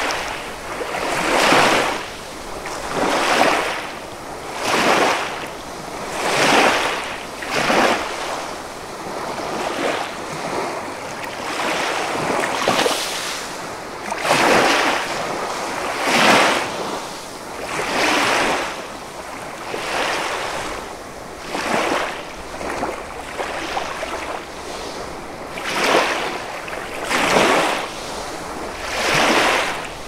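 Small sea waves washing up onto a sandy beach at the water's edge, each surge breaking and rolling the sand grains, repeating every second or two with a couple of quieter lulls.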